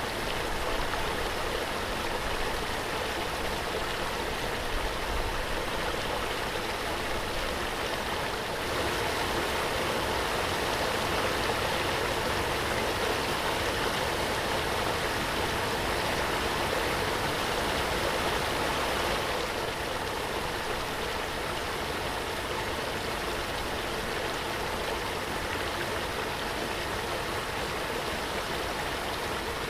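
Waterfall: a steady rush of falling water. It swells a little louder from about nine seconds in and eases back about ten seconds later.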